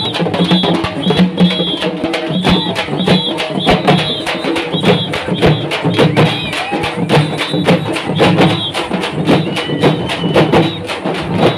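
A troupe of Telangana dappu frame drums beaten together in a fast, driving, sharp-slapping rhythm, with a high tone recurring over the beat.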